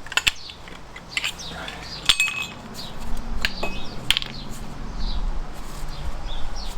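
Loose metal engine parts from a Fiat 500 top end (the oily tubes and tappet rods) clinking and knocking as they are lifted out and handled. A handful of separate sharp clinks come at uneven intervals.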